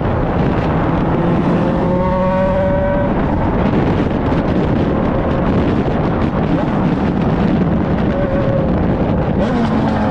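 Yamaha XJ6's 600 cc inline-four engine and exhaust running under way as the motorcycle is ridden, a steady, dense engine note heard from the rider's seat.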